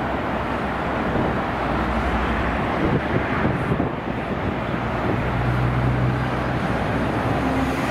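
Boeing 777-300ER's two GE90 turbofan engines at takeoff thrust during the takeoff roll: a steady jet engine noise, with a low hum that grows stronger about five seconds in.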